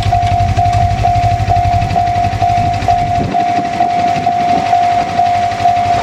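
Japanese level-crossing warning bell ringing with a steady electronic tone, about two strikes a second, while the barrier is down. A low rumble underneath drops away about three seconds in.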